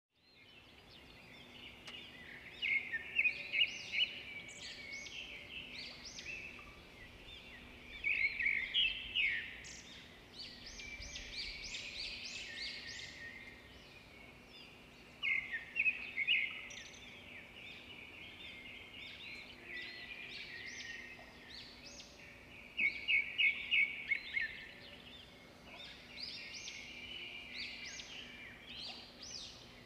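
Wild birds chirping and singing, with loud bursts of rapid repeated notes every several seconds, over a faint steady low hum.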